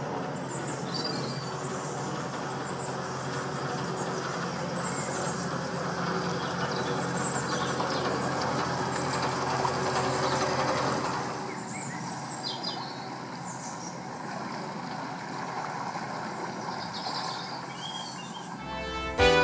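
Narrowboat's inboard diesel engine running steadily as the boat passes close by, loudest about ten seconds in as the stern goes past, then dropping off as it moves away. Birds chirp now and then, and piano music starts just before the end.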